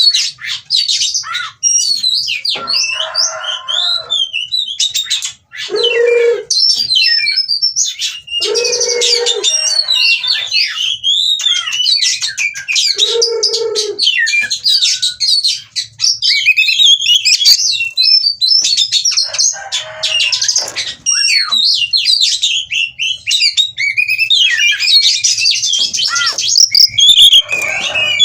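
Oriental magpie-robin (kacer) singing a fast, unbroken, varied song of sliding whistles and chirps, broken several times by harsh, rasping lower notes. This is the excited song of a bird in breeding condition.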